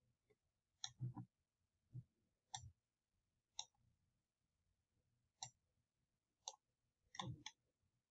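Computer mouse clicking: about eight faint, separate clicks, some in quick pairs.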